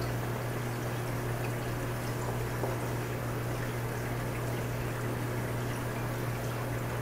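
Steady low hum with an even hiss: room background noise.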